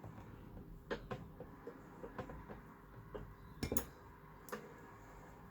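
Small metal tools and parts clicking and clinking against a work desk in a scatter of sharp taps, the loudest two close together about two-thirds of the way in.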